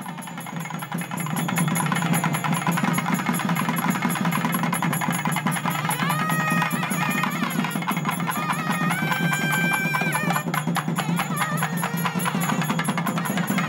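Music of fast, steady drumming on large barrel drums, swelling over the first couple of seconds. A high melody of held notes joins about six seconds in.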